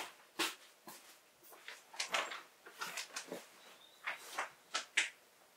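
Rustling and soft bumps of fabric floor cushions being lifted and stacked, a dozen or so short brushes and thuds scattered irregularly.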